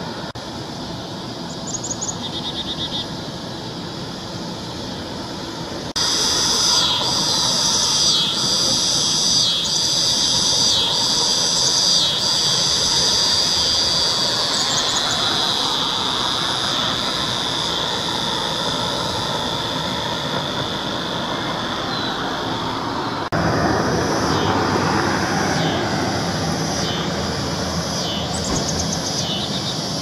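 Black-capped chickadee calls: short high whistled notes, repeated roughly once a second for a stretch, over a steady high-pitched ringing and a broad noisy background. The background changes abruptly twice, about six seconds in and again past the twenty-second mark.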